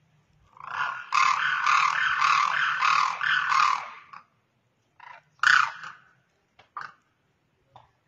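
Demoiselle crane calling: a loud run of quickly repeated calls, about three a second, lasting some three seconds, then two short calls a little after the middle and a few faint short notes near the end.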